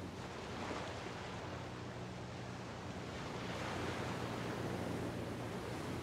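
Small bay waves washing onto the beach, swelling about a second in and again midway, with a low steady hum underneath.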